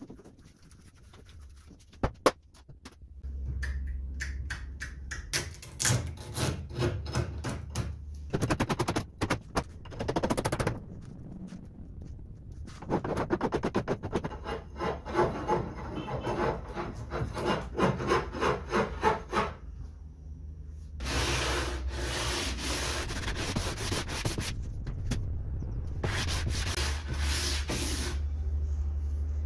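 Hand sanding and filing: a wooden sanding block and a flat metal hand file rasping back and forth over the laminated table top and its wooden edge strip, in several runs of quick strokes with short pauses between them. A couple of sharp knocks about two seconds in.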